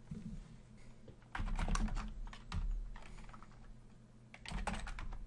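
Typing on a computer keyboard in short runs of key clicks: one run about a second and a half in and another near the end, with pauses between.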